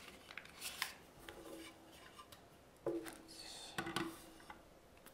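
Faint handling noises from a plastic and aluminium notebook cooler and its packaging: rubbing, rustling and scattered light clicks and taps.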